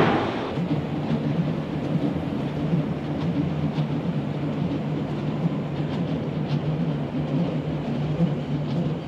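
Berlin U-Bahn small-profile train rolling along a steel elevated viaduct: a steady low rumble with a few faint clicks.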